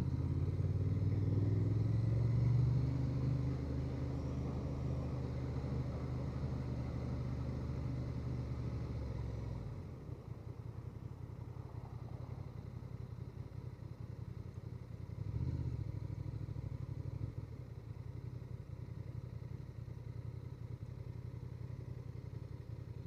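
Honda Transalp 750's parallel-twin engine running on the move, loudest in the first few seconds. About ten seconds in it drops to a lower, quieter note, swells briefly once more, then settles steady.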